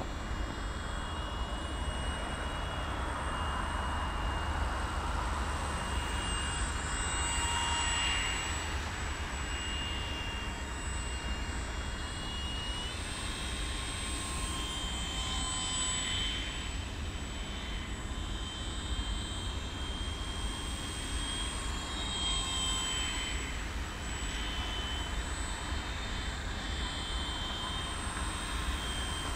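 Motor of a radio-controlled trainer model airplane in flight, a steady high whine that rises and falls a little in pitch as the plane passes back and forth. Low wind rumble on the microphone runs underneath.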